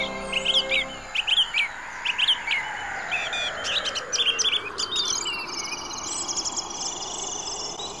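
Small songbirds chirping in quick, high, repeated calls. Sustained music notes stop about a second in, and a soft hiss slowly falls in pitch beneath the birdsong.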